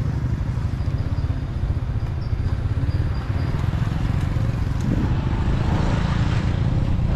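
Motorbike being ridden on the road, a steady low engine and road rumble.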